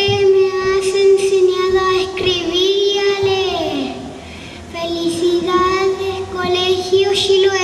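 A boy singing solo into a microphone in long held notes, with a short pause about four seconds in.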